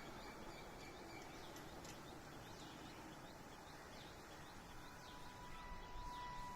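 Faint outdoor ambience with small birds chirping repeatedly; a faint steady tone comes in about five seconds in.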